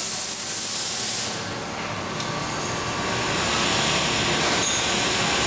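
Centerless grinder thrufeed grinding carbide rods with a diamond wheel under coolant: a loud hiss that drops away about a second in, leaving a steadier machine noise.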